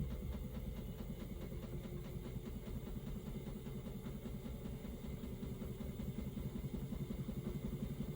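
Panasonic NA-VX9300L drum washing machine running its drum in the service-mode operation check after its friction dampers were replaced. A steady low running sound with a fast, even pulsing.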